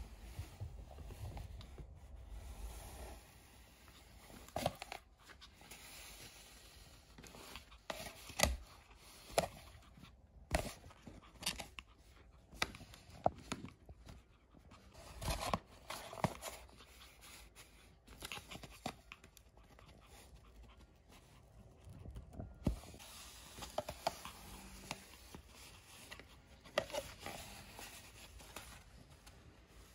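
Pomeranian chewing and biting an empty cardboard kitchen-roll tube: irregular scratching and crunching of cardboard with scattered sharp crackles.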